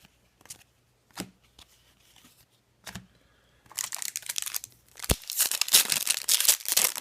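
A few light handling taps, then from about three and a half seconds in, the wrapper of an Upper Deck hockey card pack being torn open and crinkled.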